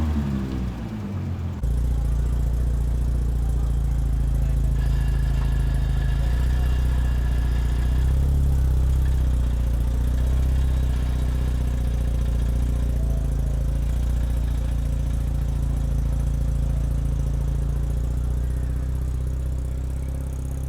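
Nissan GT-R engine idling steadily with a low, even exhaust note that starts abruptly about one and a half seconds in.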